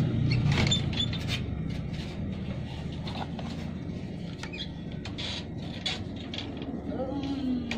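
Light scattered clicks and knocks of wooden popsicle-stick pieces and a hot glue gun being handled, over a low steady rumble.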